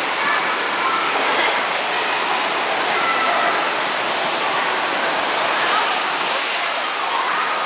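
Steady rush of water pouring out of a tube water slide into its splash pool. About six seconds in, a rider shoots out of the tube and splashes into the water.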